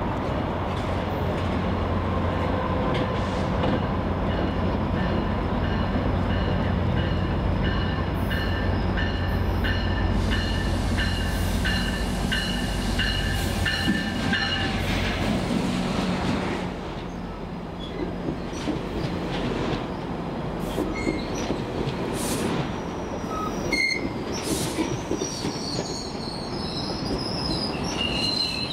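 GO Transit MP40PH-3C diesel locomotive pulling a commuter train into a station. Its deep engine drone builds as it approaches and passes about halfway through. After that the bilevel coaches roll by with wheel squeal and clicks over the rail joints.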